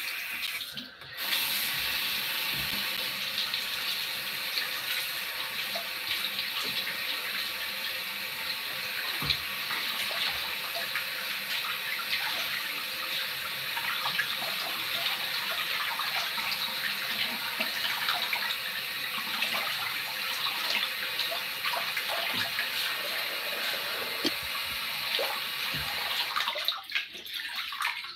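Bathroom sink tap running steadily into the basin; it is turned on about a second in and shut off near the end.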